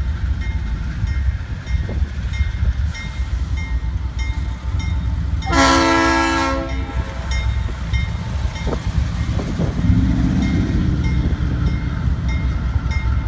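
Diesel freight locomotive's air horn sounds one chord blast of about a second and a half, midway through, over a steady low rumble. A grade-crossing warning bell dings faintly and evenly throughout.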